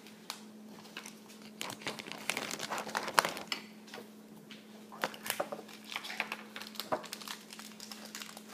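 Toy packaging crinkling and rustling in a child's hands as a blind-bag surprise ball is unwrapped, in many irregular crackles, over a faint steady hum.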